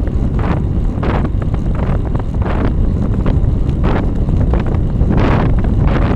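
Heavy wind buffeting the microphone of a bike-mounted camera riding at about 32 to 35 km/h, with sharper gusts flaring every second or so.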